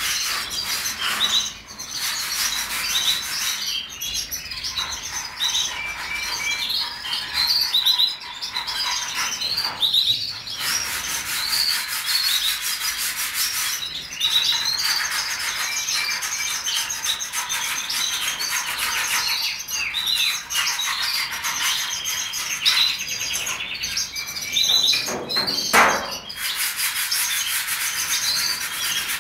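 A large number of caged small songbirds chirping and singing at once: a dense, continuous chorus of overlapping high chirps and rapid trills.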